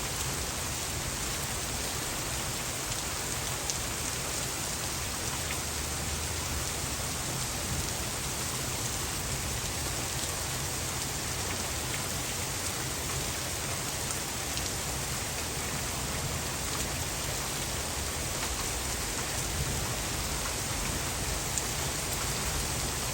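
Heavy storm rain pouring down steadily, an even hiss of drops hitting surfaces with a few sharper ticks.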